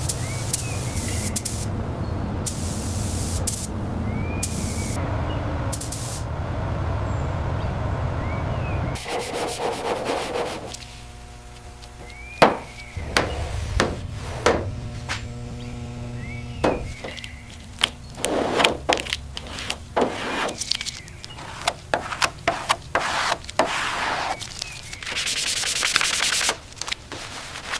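Sanding and rubbing, cut together with many sharp clicks and knocks of workshop tools, and a steady hum through the middle stretch.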